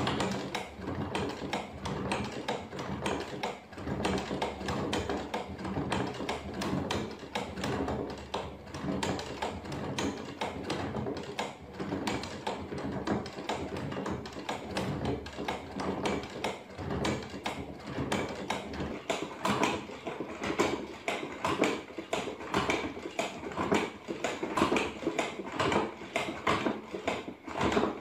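Hand-cranked cardboard horse automaton: its popsicle-stick cams and wooden followers clacking against the cardboard as the crank turns, a quick, uneven run of light taps.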